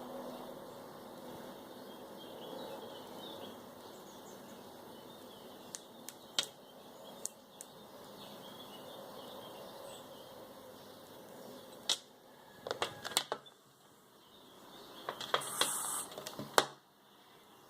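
Scattered sharp clicks and knocks, a few in quick succession about two thirds of the way through, then a short airy hiss among more clicks near the end.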